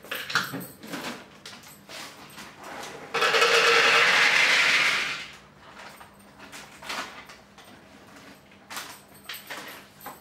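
Kitchen handling sounds: scattered clicks and knocks of plastic jars and lids on a counter. A steady rush of noise starts abruptly about three seconds in and lasts about two seconds.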